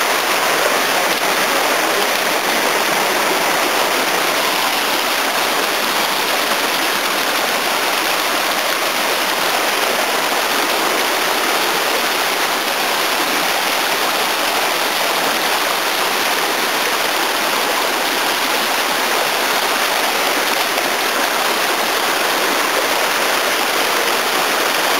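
Fast mountain stream rushing over boulders and small cascades: a steady, loud rush of water.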